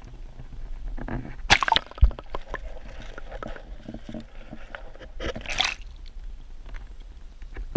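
Canal water splashing and sloshing around a GoPro as it is plunged under the surface and lifted back out. There are two louder splashes, about a second and a half in and again a little past the middle, with a low knock just after the first, and uneven gurgling and sloshing between them.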